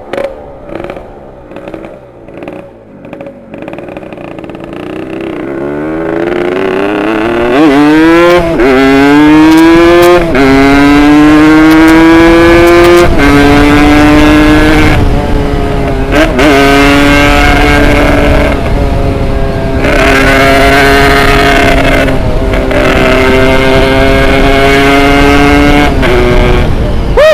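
Tuned Yamaha RX Special 115 two-stroke motorcycle engine, quiet at first, then accelerating hard from about six seconds in. Its pitch climbs through each gear and drops at four upshifts, then holds steady at speed with small dips near the end.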